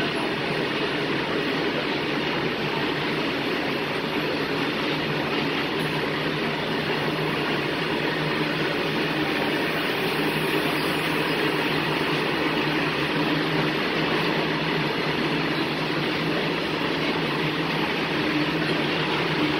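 Indian goods train's open freight wagons rolling past on the rails, a steady, even noise of wheels on track.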